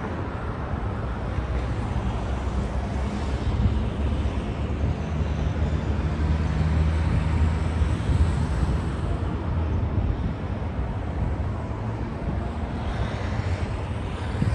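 Steady low rumble of distant city traffic, swelling slightly around the middle.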